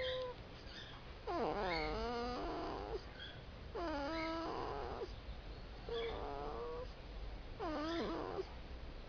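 A sleeping pet snoring, each breath a whistling, squeaky tone that slides up and down in pitch, about five breaths spaced roughly two seconds apart.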